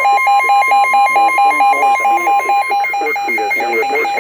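Electronic alarm beeping in rapid on-off pulses, several a second, with a buzzy tone, sounding over a synthesized weather-radio voice reading a severe thunderstorm warning. A faint steady tone runs underneath.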